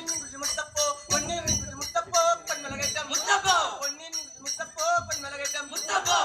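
Men singing a Parichamuttu kali folk song over a steady beat of sharp metallic clashes, about three to four a second.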